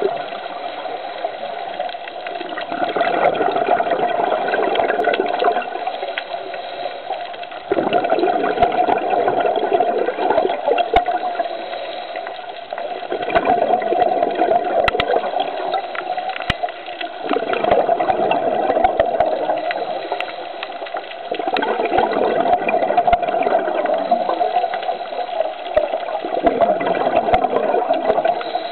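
Scuba diver breathing through a regulator underwater: surges of exhaled bubbles about every four to five seconds, each lasting two to three seconds, over a steady hum.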